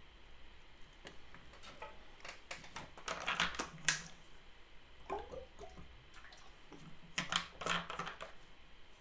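Faint quick clicks and taps, scattered through and thickest about three to four seconds in and again about seven to eight seconds in.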